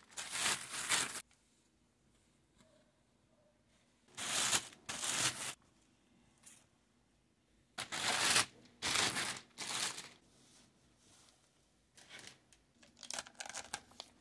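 Clear polyethylene packaging bags and foam wrap being pulled off wooden speaker cabinets: long rustling swishes of plastic at the start, about four seconds in and about eight seconds in, then a run of quick small crinkles near the end.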